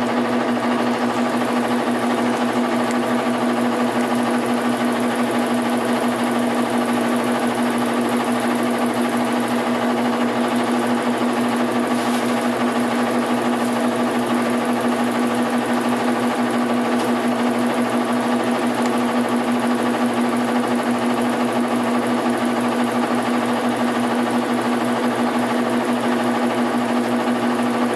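Washing machine running with a loud, steady hum and a fast, even rattle: the abnormal noise the machine is making.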